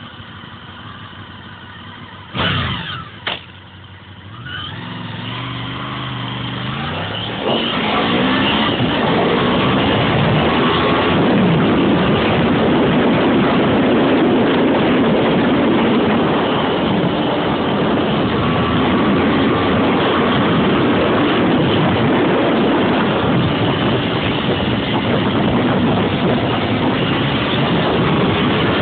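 Honda VFR800FI's V4 engine running at idle, two sharp knocks, then the bike pulling away with the engine pitch rising. From about seven seconds in, loud steady wind rush over the bike-mounted microphone, with the engine running at speed underneath.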